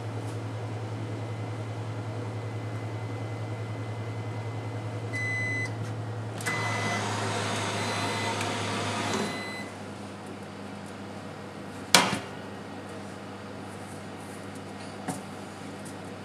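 AX-HC2 oven running with a steady hum at 230 °C, giving its end-of-cycle beeps about five seconds in; the door is opened and a rush of fan noise follows for about three seconds before the hum stops. Then one sharp metallic clack as the hot rack is handled, and a couple of lighter knocks near the end.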